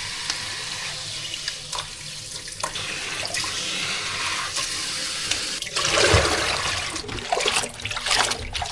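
Water running from a tap into a sink, rinsing freshly picked leaf lettuce. The flow swells about six seconds in, then breaks into uneven splashing as the leaves are handled under it.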